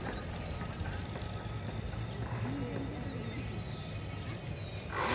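Outdoor ambience on an open field among city buildings: a steady low rumble, small birds chirping now and then, and faint distant voices calling. A louder burst of noise comes about five seconds in.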